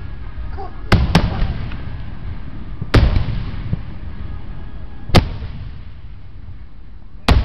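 Aerial fireworks shells bursting overhead: five sharp bangs, two close together about a second in, then one about every two seconds. Each is followed by a low rumbling echo.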